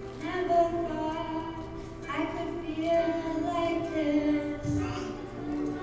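A child's voice singing a song over recorded backing music.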